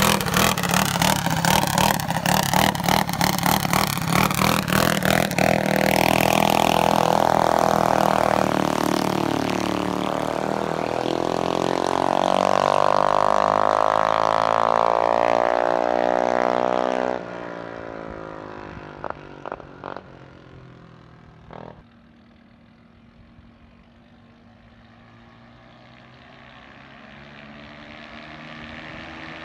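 Mini bike's small engine revving hard in quick blips, then two long climbs in pitch as the bike accelerates away at full throttle. About 17 seconds in the throttle drops off and the engine fades into the distance with a few faint blips, then slowly grows louder again near the end.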